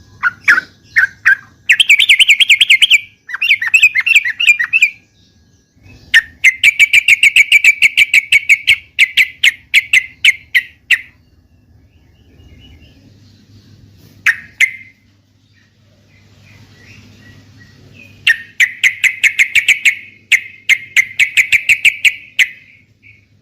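Yellow-vented bulbul (trucukan) song: loud phrases of rapid, chattering notes at about ten a second, each phrase lasting one to several seconds, with short pauses between them.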